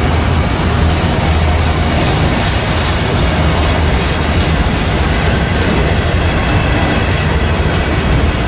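Freight train of autorack cars rolling past at close range: a steady, loud rumble and rush of steel wheels on the rails, with faint repeated clicks.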